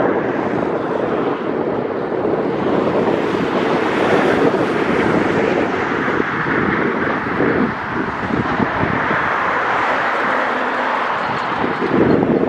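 Wind buffeting the microphone over road traffic passing on a bridge; the rushing tyre and engine noise swells for several seconds in the middle.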